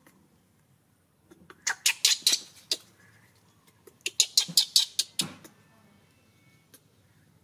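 Baby macaque giving two bouts of rapid, shrill squeaks, each lasting about a second, the second starting about two seconds after the first.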